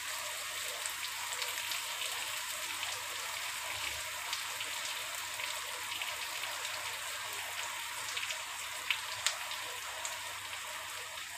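Sliced onions, green chillies and coriander stems frying in oil in a kadai: a steady sizzle with scattered small crackles as they soften.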